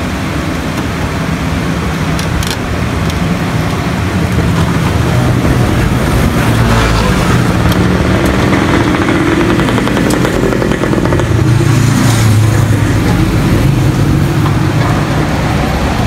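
A motor vehicle engine running close by: a steady rumble that grows louder toward about twelve seconds in and then eases off, like a vehicle approaching and passing.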